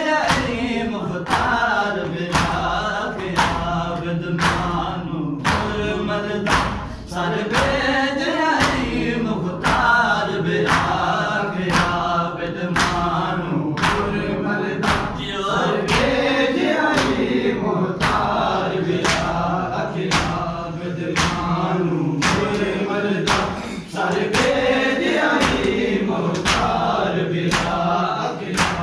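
Group of men chanting a noha, a Shia lament, together, over the sharp slaps of hands beating on chests (matam) in a steady rhythm, about three slaps every two seconds.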